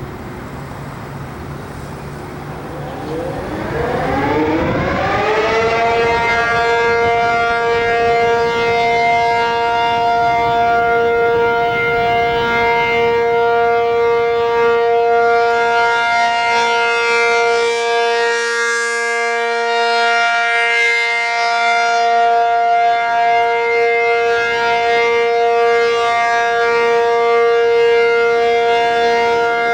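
ACA P-50 (Penetrator 50) tornado siren starting up over faint city traffic noise. About three seconds in, it winds up in pitch over roughly three seconds, then holds a steady tone with strong overtones: the steady alert signal of a siren test.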